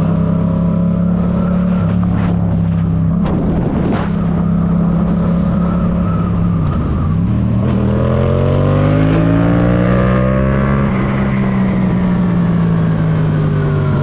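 Yamaha MT-07's 689 cc parallel-twin engine running steadily under way. Its revs drop briefly about halfway through, then climb for about three seconds and slowly ease off.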